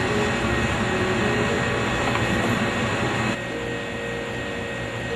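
Steady hum and hiss of a fast-food restaurant's kitchen equipment and ventilation, dropping to a quieter, steady room hum about three and a half seconds in.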